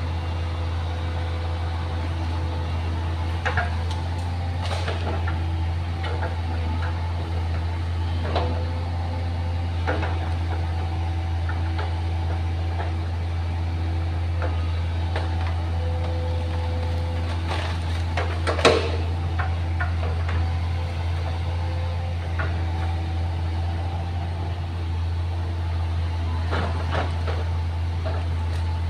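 Excavator diesel engine running steadily under work, with scattered knocks and clunks, the loudest about nineteen seconds in.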